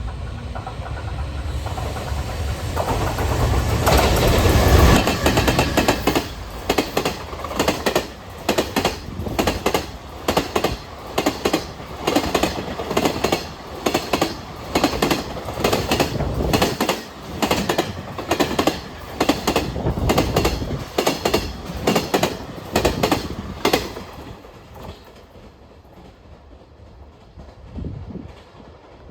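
Freight train passing close by. The locomotive comes by loudest about four to five seconds in, then a long string of wagons clacks rhythmically over the rail joints, and the sound dies away a few seconds before the end.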